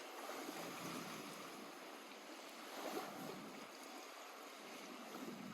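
Lake water lapping gently at the shore, a soft steady wash that swells slightly about a second in and again near three seconds.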